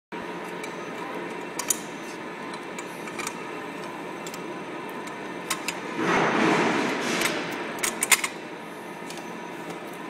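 Steady hum of an aluminium corner crimping machine running, with light clicks and knocks as aluminium window profiles are handled and set against it. A louder rush of noise starts about six seconds in and lasts about a second and a half.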